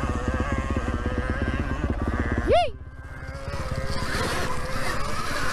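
Dirt bike engine running with a rapid, even firing beat. About two and a half seconds in, a short, loud whoop rises and falls in pitch, the engine drops away, and a hissy rush builds.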